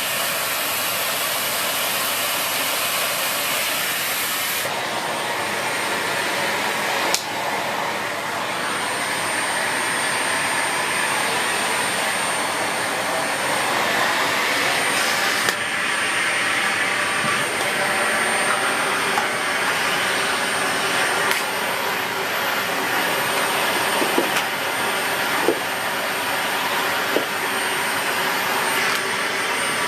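Dyson Light Ball Multi Floor bagless upright vacuum cleaner running steadily: rushing suction with a thin high motor whine. The rush of air changes tone a couple of times, and there are a few light knocks.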